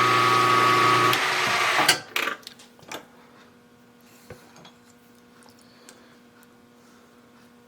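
Milling machine motor running with a steady whine, switched off about a second in and spinning down within a second, then small clicks and taps of parts being handled over a faint hum.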